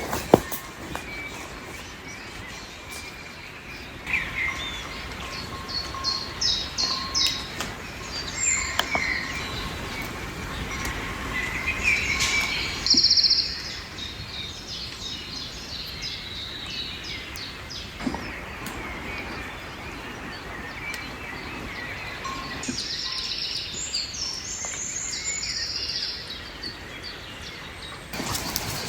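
Songbirds singing and chirping in short trills and phrases over a steady outdoor background noise, with one sharp click just after the start.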